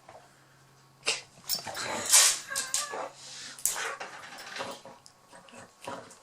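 Boxer dog whimpering and yipping as it works at a squeaky toy frog: a quiet first second, then a run of short, sharp sounds, loudest a little after two seconds in.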